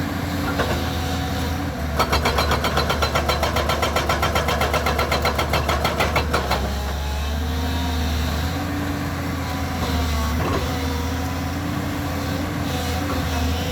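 JCB 215 excavator's diesel engine running, with its hydraulic rock breaker hammering rapidly, about eight blows a second, for roughly four and a half seconds starting about two seconds in; then the engine runs on alone.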